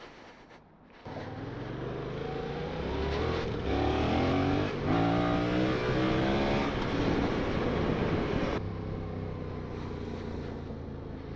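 Yamaha MT-07's 689 cc parallel-twin engine, heard from the rider's seat. It comes in about a second in and accelerates, its pitch rising again and again as it goes up through the gears, then settles to a steadier, quieter run for the last few seconds.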